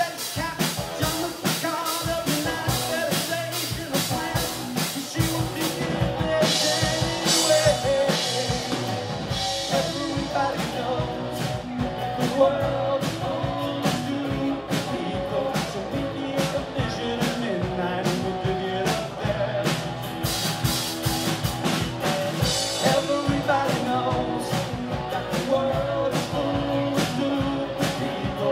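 Live rock band playing: acoustic and electric guitars over a drum kit keeping a steady beat, with cymbal crashes twice.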